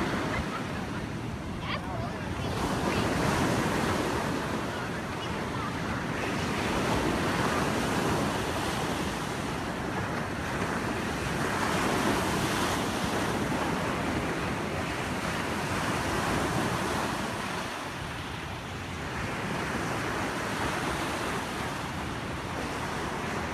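Ocean surf breaking and washing up the beach, a steady rush that swells and fades every few seconds, with wind buffeting the microphone.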